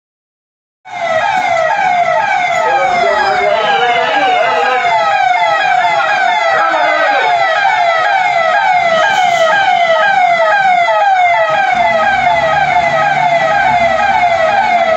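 Emergency vehicle siren sounding a fast, repeating falling wail, a few sweeps a second, starting about a second in.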